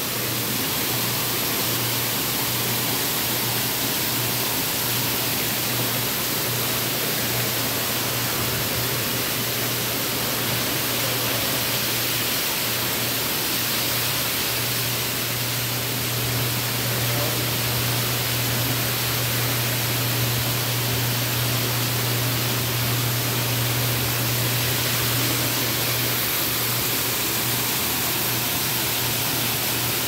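Indoor waterfall splashing steadily over rock into a pool: an even, unbroken rush of falling water, with a steady low hum underneath.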